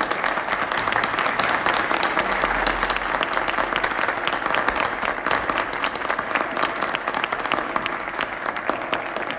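A group of people applauding, many hands clapping steadily together.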